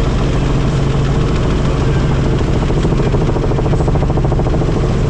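Helicopter in flight: steady rotor and engine noise that holds at an even level throughout.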